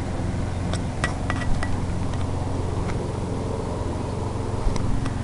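A steady low mechanical hum, with a few faint clicks about a second in and again near the end.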